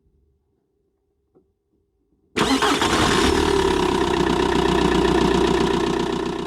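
Car engine starting up and running, with a quick regular pulsing under a steady hum. It comes in abruptly about two seconds in and fades away at the end.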